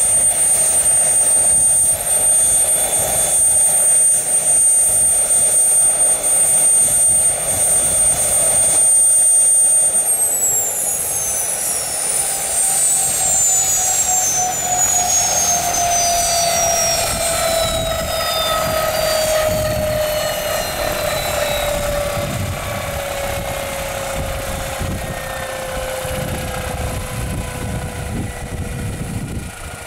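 Fairchild-Hiller FH1100 helicopter's Allison 250 turboshaft running with a steady high whine. About ten seconds in, the whine and the lower tones begin to fall steadily in pitch and the sound slowly fades as the turbine spools down at engine shutdown, with the rotors still turning.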